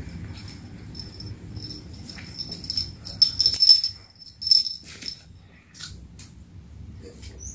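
A run of short, high-pitched squeaks from a small animal, repeated over a few seconds and loudest in the middle.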